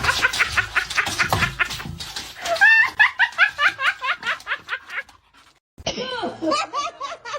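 A person laughing in quick repeated bursts, breaking off for a moment about five seconds in, then laughing again.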